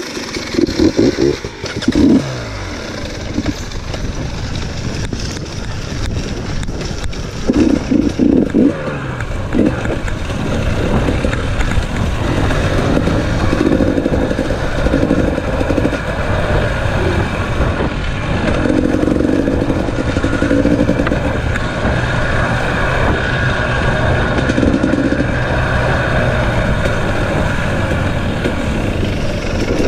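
Enduro dirt bike engines revving in short bursts about a second in and again around eight seconds in, with the revs falling away after the first. The engines then run on steadily as the bikes ride along a dirt trail, heard from on board.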